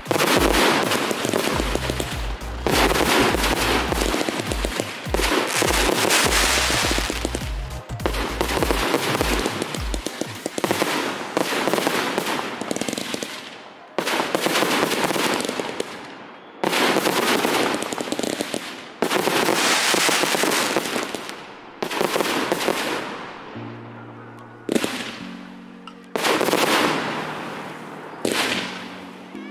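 Fireworks shells bursting one after another, a sudden bang every one to two seconds, each one echoing as it fades. Music plays underneath.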